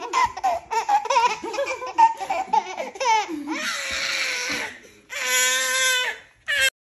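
A baby laughing in a run of short bursts, then a breathy shriek about four seconds in and a longer held squeal near the end.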